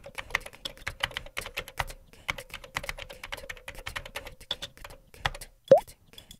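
Fast clicking of typing on a laptop keyboard, over a faint steady hum, stopping about five and a half seconds in. Just after it comes a short, loud sound effect that rises quickly in pitch.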